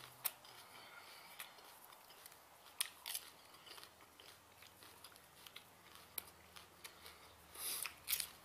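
A man biting and chewing raw habanero peppers: faint scattered crunches and wet mouth clicks, with a quick cluster of bites near the end.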